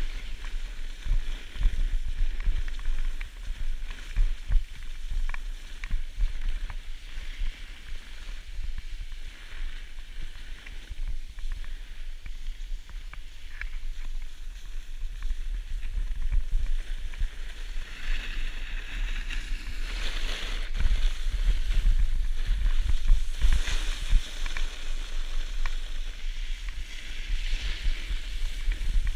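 Snowboard base and edges scraping and hissing over packed snow while riding downhill, with wind buffeting the microphone as a low rumble. The scraping swells louder several times in the second half.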